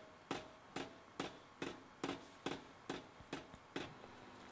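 Steady, even hammer blows on a fullering tool set on a red-hot steel bayonet blade, about two strikes a second: nine sharp metallic knocks that stop a little under four seconds in.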